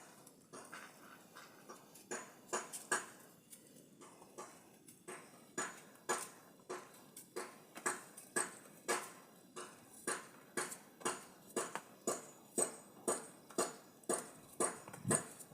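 Knife chopping food on a board: sharp knocks, loose at first, then a steady rhythm of about two a second.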